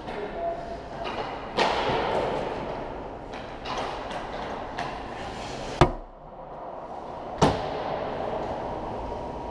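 Ice hockey skates scraping and carving on the ice. Two sharp, loud cracks of pucks, the first a little past the middle and the second about a second and a half later, with a few lighter clicks before them.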